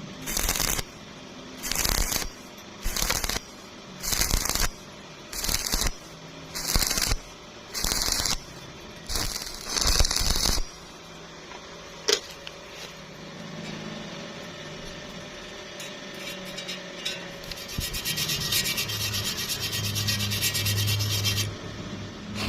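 Rhythmic scraping strokes on metal, about nine of them, each about half a second long and evenly spaced. They stop after about ten seconds; a single click follows, then a quieter steady hiss to the end.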